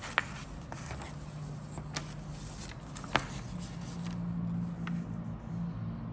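A paper instruction sheet is handled and shifted, rustling with several sharp crinkling snaps, the loudest right at the start and about three seconds in. A low steady hum runs underneath and grows a little louder in the second half.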